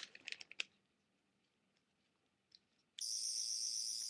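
A few light plastic clicks from the toy sonic screwdriver being handled, then about three seconds in its electronic sound effect switches on: a steady, high-pitched warbling buzz.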